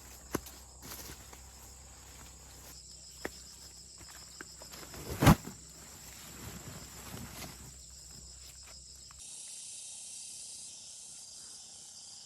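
Insects chirring steadily in a field, with scattered rustles and snaps of plants being handled and one sharp crack about five seconds in. About nine seconds in, the rustling stops and the insect chorus becomes fuller and louder.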